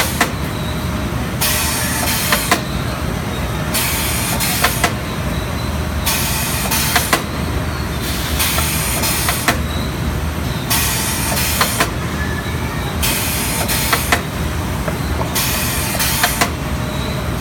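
Steen ST 828 poultry drumstick machine running: a steady low hum, with a short burst of hiss about every two seconds and sharp metallic clicks in between.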